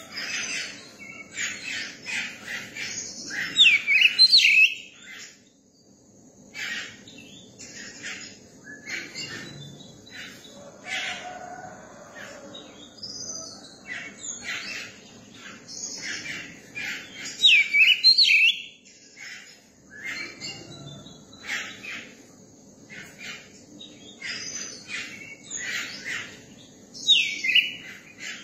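Young oriental magpie-robin singing: a running string of varied chirps and short notes, broken three times by loud swooping whistles, about four seconds in, around the middle and near the end.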